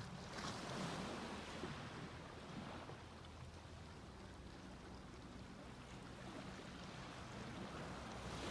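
Small sea waves breaking and washing up a beach, one surge swelling about half a second in and fading over a couple of seconds, another rising near the end, over a faint low steady hum.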